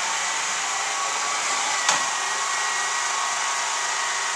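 Cordless Swivel Sweeper running as it is pushed over a hardwood floor: a steady whir from its battery motor and spinning brushes, with a thin steady whine. One sharp knock sounds about two seconds in.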